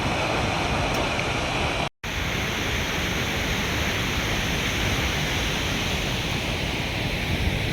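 Steady roar of rushing water from a large waterfall, cut off for an instant about two seconds in and then carrying on as before.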